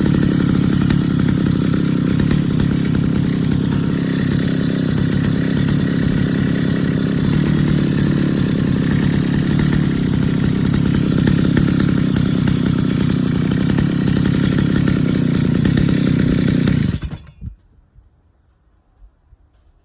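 Renovated Kawasaki TD48 two-stroke brush-cutter engine on its first run, running steadily at a fast idle, then cutting out about 17 seconds in.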